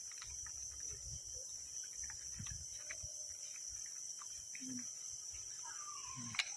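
Steady high-pitched chirring of night insects such as crickets, with scattered faint clicks and rustles. Near the end comes a single sharp crack, a PCP air rifle shot.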